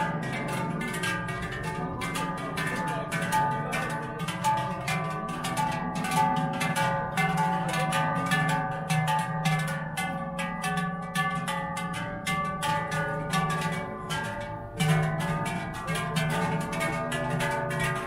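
Large Appenzell herdsmen's cowbells ringing as they are carried: a dense run of overlapping clangs with long ringing tones, and one louder clang about fifteen seconds in.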